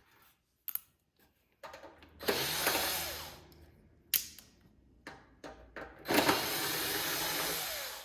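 Power drill running in two bursts, one about a second long and one about two seconds, driving screws out of the heater's sheet-metal front. Between the bursts come small clicks and knocks of screws and parts.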